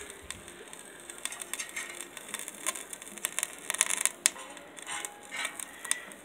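Irregular small clicks and light metallic clinks, bunched most thickly about four seconds in, with one sharper click, from handling the steel rocket heater while lighting its fire.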